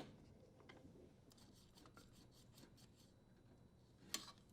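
Faint scraping and light clicks of a Phillips screwdriver threading a screw into a dishwasher's terminal box cover, with one sharper click about four seconds in.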